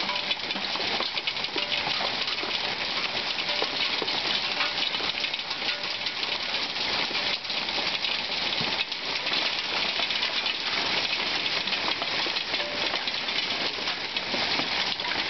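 Heavy hailstorm: a dense, steady clatter of countless small hailstones striking surfaces, full of tiny sharp ticks.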